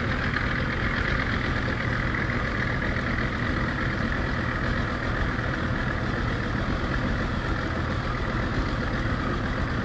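A small boat's motor runs steadily at low cruising speed, with an even low rumble and hiss.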